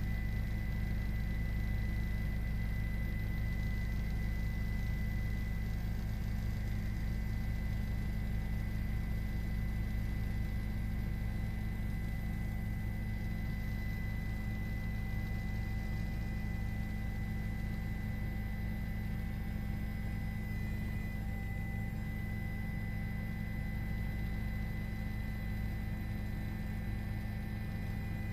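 Steady, unchanging low mechanical drone with a few constant humming tones on top.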